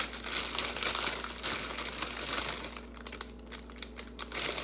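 Plastic bag crinkling and rustling as it is handled by hand, an irregular run of crackles.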